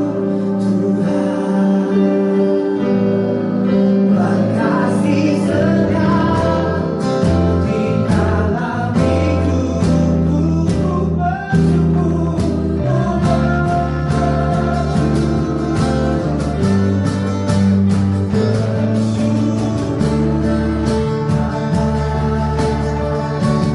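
Worship music: singing over guitar and sustained instrumental chords.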